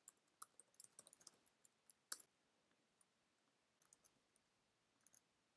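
Faint, sparse computer keyboard keystrokes against near silence: a quick run of clicks in the first two seconds, then a few scattered ones near the end.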